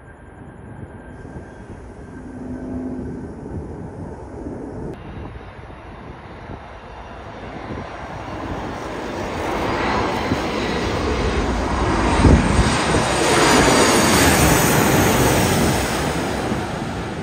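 Boeing 737 MAX 8 airliner on landing approach passing low overhead. Its turbofan engine noise swells, peaks about two-thirds of the way in with a drop in pitch as it passes, then fades. Fainter distant jet noise comes first.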